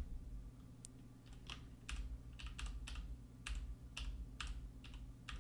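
Typing on a computer keyboard: irregular key clicks, well over a dozen, over a faint steady low hum.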